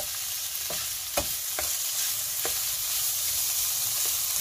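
Diced ham and onion sizzling in a frying pan, stirred with a wooden spatula that knocks lightly against the pan a few times.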